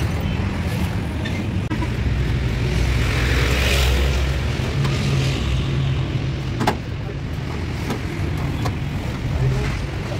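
A motor vehicle engine running steadily, swelling about three to four seconds in, with a few sharp clicks later on.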